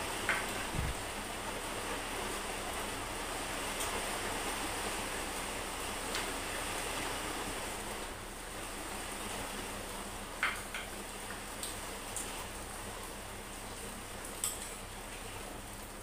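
Spoons and chopsticks clinking now and then against ceramic bowls during a meal, a handful of short sharp clicks over a steady rushing hiss.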